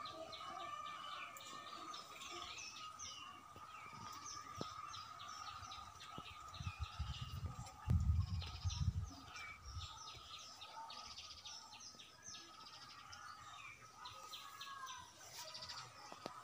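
Small birds chirping many short notes over a steady high-pitched tone. A few low rumbles about halfway through are the loudest sound.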